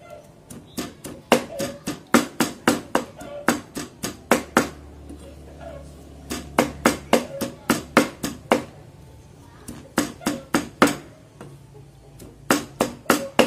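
A knife chopping hard on a cutting board, mincing herbs such as ginger, lemongrass and lá lốt. The strokes come about four or five a second, in runs of a few seconds with short pauses between them.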